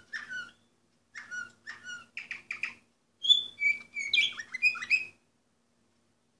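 Orpheus canary singing: slow repeated notes about two a second, then quicker, higher notes, then a louder rapid phrase. The song cuts off suddenly about five seconds in.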